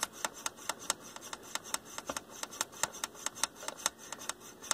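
A Nikko NR-515 receiver's front-panel control being worked back and forth, giving a steady run of sharp clicks, about four or five a second. The control is being exercised to spread freshly sprayed DeoxIT contact cleaner through it and clear oxide from its track.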